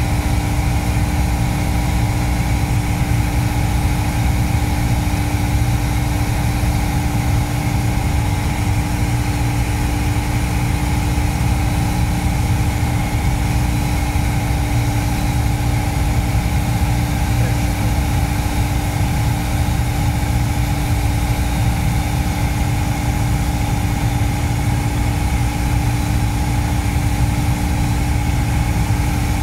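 Piper PA-28 light aircraft's piston engine and propeller running, heard from inside the cockpit as a steady, unchanging drone.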